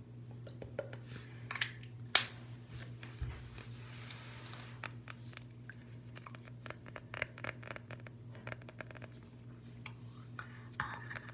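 Fingernails tapping and scratching on a glass perfume bottle: a run of light, uneven clicks, with one sharper tap about two seconds in. A steady low hum runs underneath.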